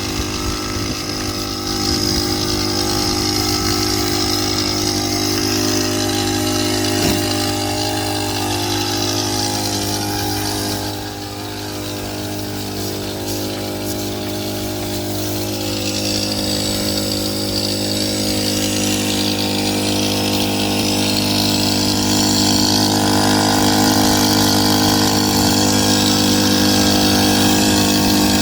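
A motor-driven machine running steadily with a constant hum. It dips briefly about eleven seconds in and grows a little louder toward the end.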